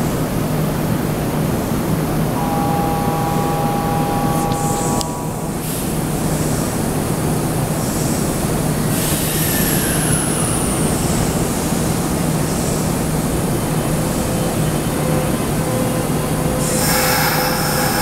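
Kintetsu electric train moving at an underground station platform: steady running noise and hum, a brief squeal of two high tones a few seconds in, and a motor whine falling in pitch about nine seconds in as the train slows.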